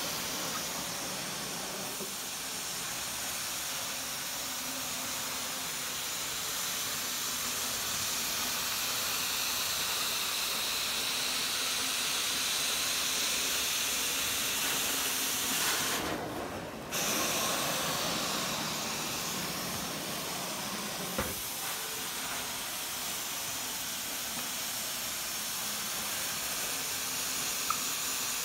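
Carpet-cleaning extraction wand hissing steadily as it sprays and vacuums water from the carpet through its hose. The high hiss cuts out for about a second just past halfway, then comes back.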